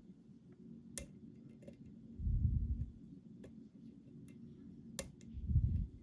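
Hook pick working the pin stack of a challenge lock held under tension: a few sharp metallic clicks, the loudest about a second in and near the end, with two low muffled rumbles in between.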